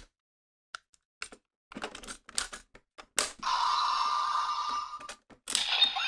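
Plastic clicks and snaps as the Melon Energy Lockseed is fitted into a DX Genesis Driver toy belt. A sharp snap comes about three seconds in, followed by nearly two seconds of the toy's steady electronic sound effect. Another click near the end sets off a further electronic sound from the belt.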